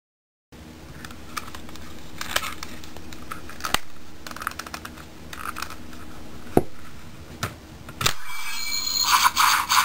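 Plastic clicking and handling of a Shodo Phone toy as it is folded and turned into brush mode, with a few sharp snaps, the loudest a little past halfway. About eight seconds in, the toy's speaker starts an electronic sound effect of quick repeating tones.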